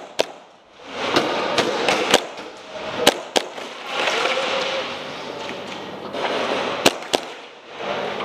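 Airsoft guns firing scattered single shots, about seven sharp pops at irregular spacing, over a constant background din.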